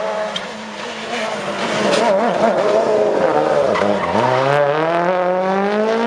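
Rally car engine at full attack. It drops away sharply as the driver lifts about four seconds in, then climbs steadily as the car accelerates out of the corner.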